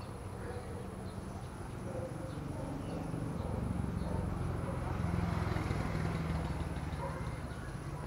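Low rumble of a passing vehicle that swells toward the middle and eases off near the end.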